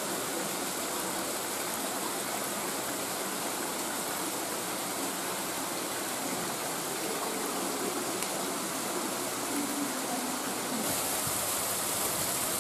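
Water in a cave stream rushing steadily, a constant even noise that turns a little brighter near the end.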